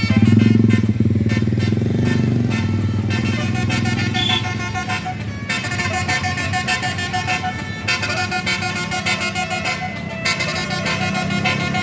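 Tour bus telolet horns playing a tune of shifting pitched notes over a bus engine running low underneath, the engine loudest in the first second or two.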